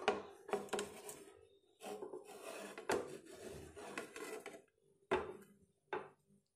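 A steel plate scraping and rubbing against a non-stick frying pan as a flipped omelet is slid off the plate back into the pan, in several stretches of rough scraping, then two short scrapes of the pan on the stove near the end.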